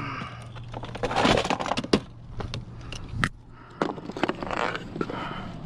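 Fishing gear being handled on a plastic kayak: a string of sharp clicks and knocks with rustling in between.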